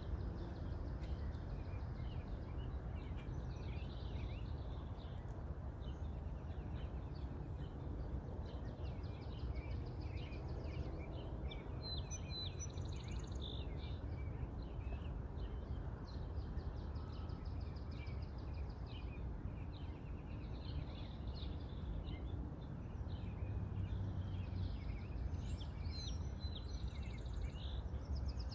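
Small birds chirping and trilling over a steady low rumble.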